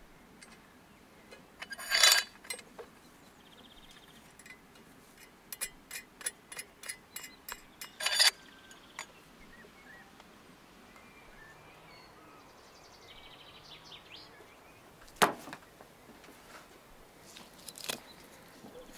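Scattered metal clinks and knocks as a perforated steel disc with a threaded bolt is fitted onto a steel spit rod, in quick runs with louder clatters about 2 s and 8 s in and one sharp knock later.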